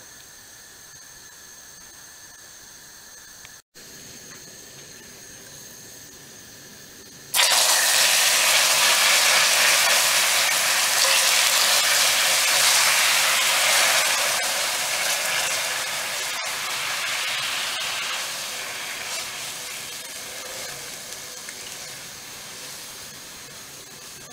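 Sugar caramelizing in a frying pan with a faint steady hiss. About seven seconds in, liquid is poured from a cup into the hot caramel and sets off a sudden loud sizzling hiss that slowly dies down.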